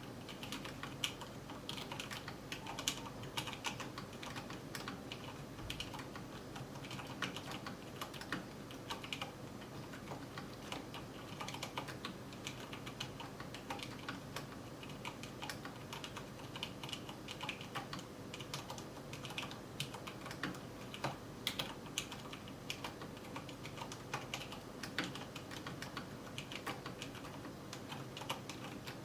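Mechanical keyboard being typed on steadily: a continuous, irregular patter of key clicks.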